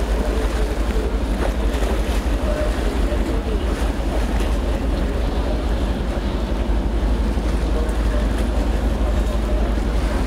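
Steady wind buffeting the microphone over the low rumble of a navy ship coming alongside a pier, with sea wash against the hull.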